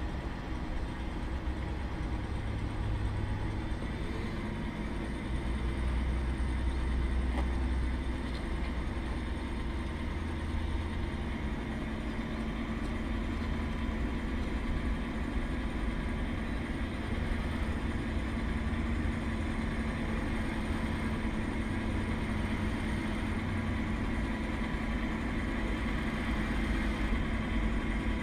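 Hydraulic pump and drive of a self-built 1:8 scale RC John Deere 9560R tractor running with a steady whine of several tones as it pushes sand with its blade. A low rumble underneath grows louder between about five and ten seconds in.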